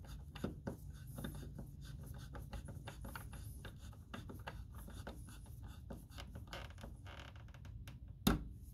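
Hand screwdriver driving the clamp-tab screws of a plastic remodel electrical box: a quiet, busy run of small clicks and scraping as the screw turns and the tabs draw the box tight against the drywall. A sharper knock comes near the end.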